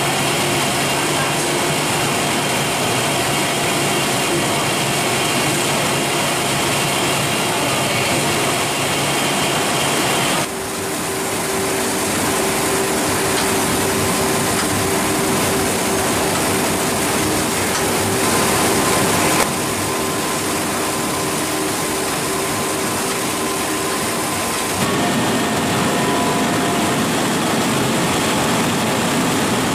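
Food processing plant machinery running: a loud, steady mechanical noise with a few steady hums and whines in it. The machine sound changes abruptly three times, at about ten, nineteen and twenty-five seconds in.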